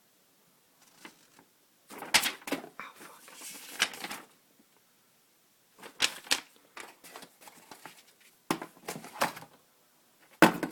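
Webcam box packaging and paper inserts being handled: sharp clicks and rustling in four short bursts with quiet gaps between.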